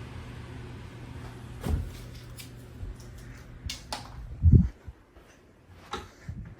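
Knocks and clunks from things being handled, then a heavy thump about four and a half seconds in, just as a steady low hum stops.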